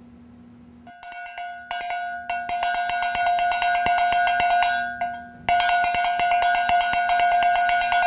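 Iron cowbell from about 1910, shaken by hand: a few single clanks, then rapid clanking over a steady ringing note. The clanking breaks off briefly about five seconds in, then starts again.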